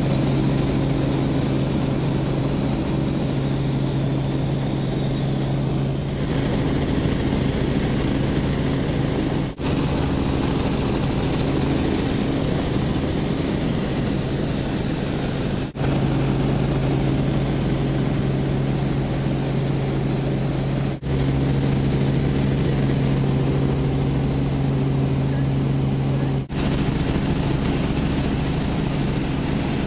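Robinson R44 Raven II helicopter heard from inside the cabin in flight: a steady drone of engine and rotors with a strong low hum, broken by four brief dropouts.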